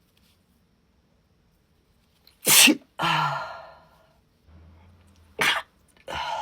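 A woman sneezing twice in a sneezing fit, about three seconds apart, starting a couple of seconds in. Each sneeze is a sharp, loud burst followed by a fading breathy tail.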